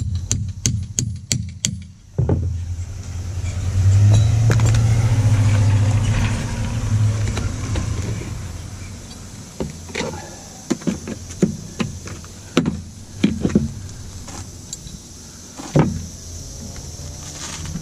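A claw hammer strikes a steel pry bar about six times in quick succession, then a low drone swells and fades. Scattered metal knocks and clinks follow as the bar and hand tools are worked against the plywood decking.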